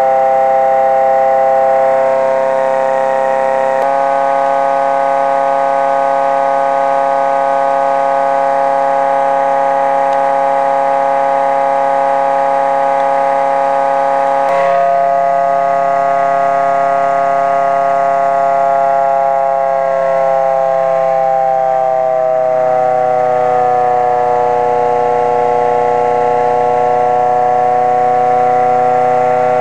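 Home-built pulse motor running at low speed, its pulsed drive coil giving a steady pitched hum rich in overtones. The pitch shifts suddenly about 4 and 15 seconds in, then falls gradually as the motor slows.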